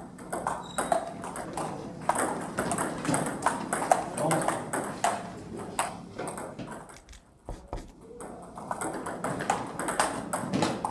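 Table tennis balls clicking off bats and table tops in quick rallies, with more rallies going at a neighbouring table. The clicks thin out in a short lull around seven seconds in, then pick up again with the next serve.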